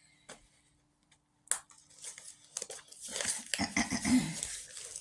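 Mail package being opened by hand: a sharp tap about a second and a half in, then wrapping rustling, crinkling and tearing, louder towards the end.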